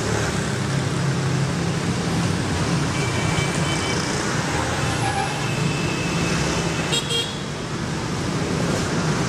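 Steady city street traffic: a constant rumble of passing cars, with a few short horn toots in the middle.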